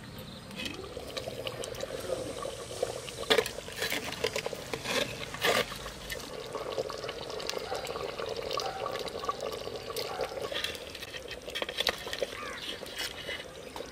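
Duck curry bubbling in a clay pot as a steel ladle stirs it, with a few sharp clinks of the ladle against the pot in the middle of the stretch.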